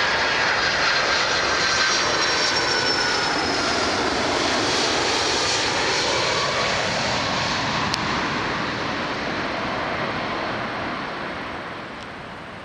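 Boeing 767-300 jet airliner passing low overhead on landing approach, a loud steady jet rush with a faint whine that slowly drops in pitch. The sound fades over the last few seconds as the aircraft moves away.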